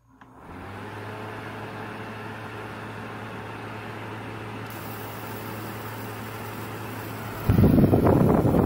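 DeWalt jobsite fan switched on, spinning up within the first second and then running steadily with a low hum and an even whoosh of air. About seven and a half seconds in, its blast of air hits the microphone and turns into a much louder, gusty wind rumble.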